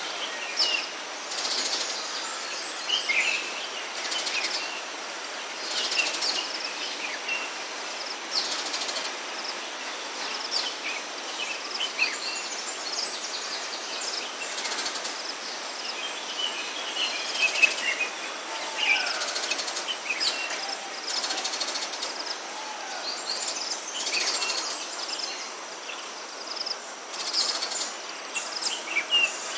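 Forest ambience with several wild birds calling in short chirps and whistles, some sliding in pitch, scattered throughout over a steady background hiss.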